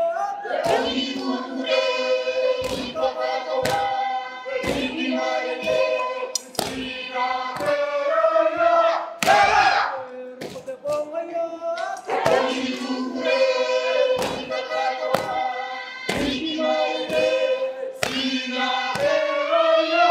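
A mixed group of men and women singing a Pacific Island dance song together, over sharp percussive beats that fall roughly once a second.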